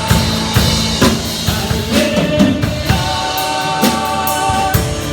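Live church praise band playing a hymn refrain, with a drum kit keeping a steady beat under sustained instruments and group singing.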